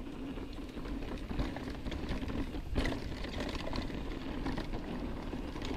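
YT Capra mountain bike rolling along a dirt trail: tyre noise and small rattles over a steady low rumble, with a sharp knock about three seconds in.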